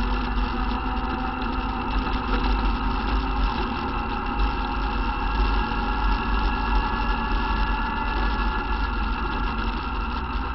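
ATV engine running at a steady pitch as the quad rides along a bumpy dirt trail, with a constant low rumble under it.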